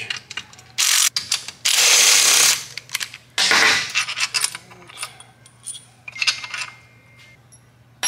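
Steel crankcase main bolts being loosened and pulled out of a Kawasaki ZX14 engine case: several short metal clattering bursts in the first few seconds, then scattered light clinks and ticks as the bolts are handled and set down.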